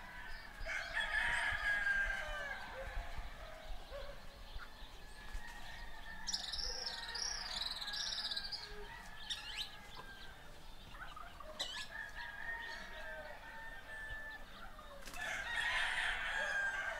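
A rooster crowing twice, one long call about a second in and another near the end. Between the crows a small bird sings a high warbling phrase, with a few short chirps.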